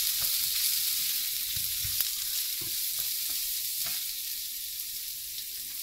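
Finely chopped cabbage, carrots and beans sizzling in hot oil in a nonstick frying pan as they are sautéed, with scattered light scrapes and taps of the spatula stirring them against the pan.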